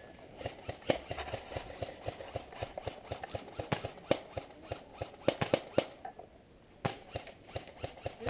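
A string of sharp, irregular clicks and snaps, several in quick succession about five to six seconds in, then fewer near the end.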